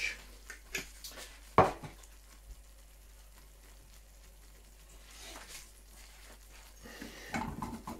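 Butter-based buffalo sauce bubbling and sizzling gently in a small saucepan on a gas hob turned down low. A single sharp knock sounds about one and a half seconds in.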